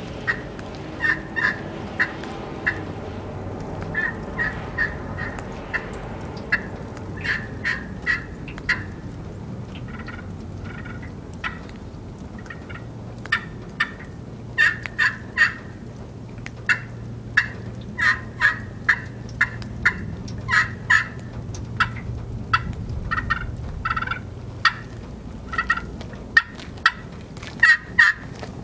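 3-inch copper-over-slate-and-asphalt turkey pot call, scratched with a striker, imitating a hen turkey in irregular runs of short, sharp notes.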